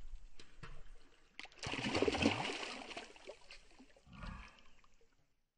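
Water splashing as a large fish thrashes in the shallows at the bank, with a burst of splashing about two seconds in and a shorter one about four seconds in.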